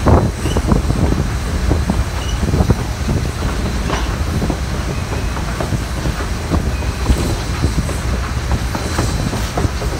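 Passenger train car rolling along the track, heard from an open coach window: a steady rumble of wheels on rails with irregular clicks and knocks and a few brief faint squeals.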